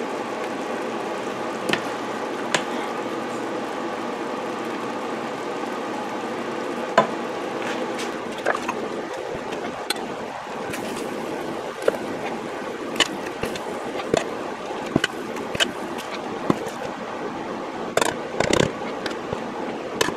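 Scattered sharp clicks and clinks of glass canning jars and their metal lids, over a steady rushing hum.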